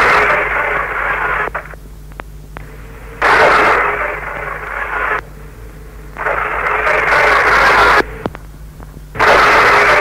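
Bursts of radio noise about two seconds long, played four times about three seconds apart with a softer hiss and hum between them: a tape-recorded 'frequency transmitter voice' clip in which a faint voice is taken to say, in Latgalian, 'Koste, tute tova mote' ('Koste, here is your mother').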